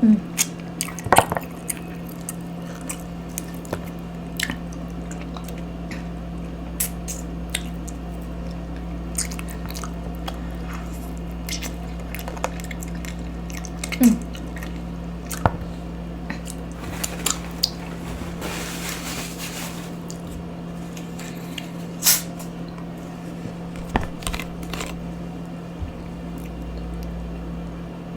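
A person chewing chicken wings and rice, with scattered wet smacks and crunches over a steady low hum.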